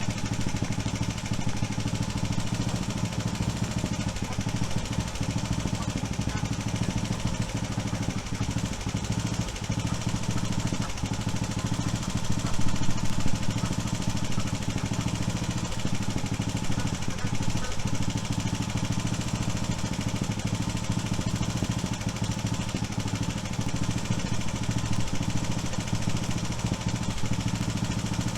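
A motor running steadily with a low, even hum, briefly louder about halfway through.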